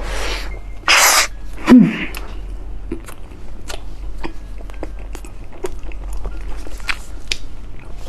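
Eating soft purple-rice bread with cheese filling: two short rustling bursts and a brief voiced "mm" near the start, then chewing with many small wet mouth clicks.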